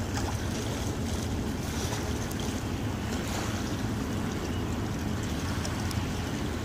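Wind buffeting the microphone by open water: a steady low rumble with a fainter hiss above it.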